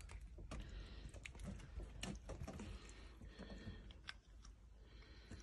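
Faint, irregular wet clicks and smacks from a cat's mouth and tongue as a hand holds its jaws open.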